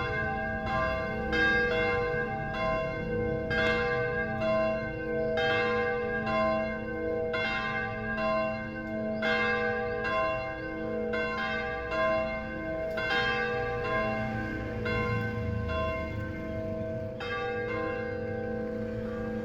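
Church bells ringing: several bells struck one after another in a quick, uneven sequence, each strike ringing on under the next. The strikes come less often in the second half while the bells keep sounding.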